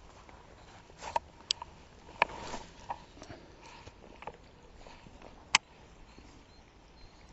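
Scattered light clicks and knocks from handling gear, with a short rustle about two seconds in and a sharp click near the end.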